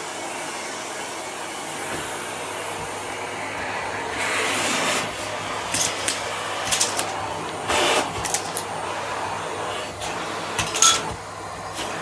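Miele canister vacuum cleaner running steadily with a hissing whoosh and a low hum. From about four seconds in, the nozzle is worked over the carpet, adding louder rushes and short sharp clicks.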